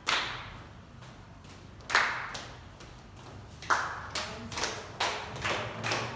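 A group of people clapping their hands. Single loud claps come about two seconds apart at first, then quicker, roughly two a second, from about four seconds in, each with a short echo.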